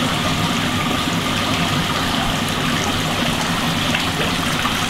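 Water running and splashing steadily into a koi pond.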